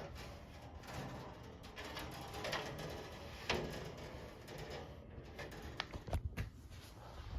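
A few sharp knocks and clicks from a metal-and-wood box fan cabinet being handled and turned, over faint background noise.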